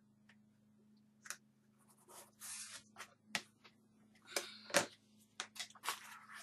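Hands sliding, pressing and rubbing down pieces of grey chipboard on a cutting mat: scattered soft scrapes, taps and rustles of board on board and mat, over a faint steady low hum.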